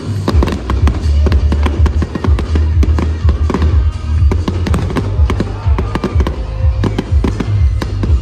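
Aerial fireworks bursting in rapid succession: many sharp pops and bangs close together, heard over loud music with a heavy bass line.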